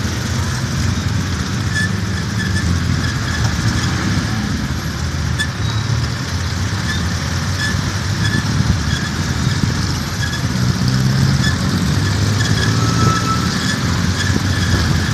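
Motorcycle tricycle's engine running steadily under way, a continuous low drone mixed with road and traffic noise.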